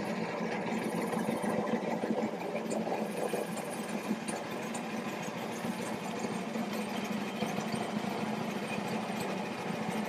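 A boat engine running steadily at low revs, a continuous low hum.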